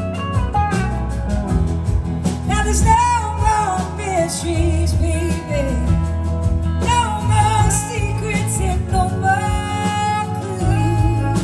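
Live blues-rock band playing a slow number: electric guitars, drums and bass, with a lead melody that slides and wavers in pitch over the steady accompaniment.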